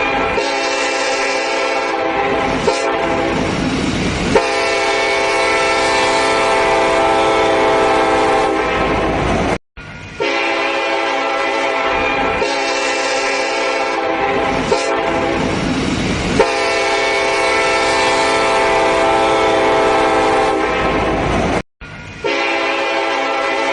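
A steady horn-like chord of several held tones over a rushing noise, repeating as a loop with a brief dropout about every 12 seconds.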